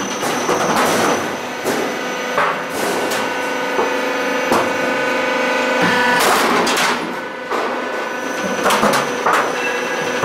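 Metal roof panel roll forming machine running: steady mechanical noise with a whine, broken by irregular metallic knocks and clanks.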